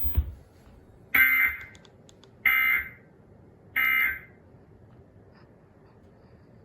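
Emergency Alert System end-of-message tones: three short, buzzy bursts of digital SAME data, about a second and a quarter apart, signalling the end of the alert.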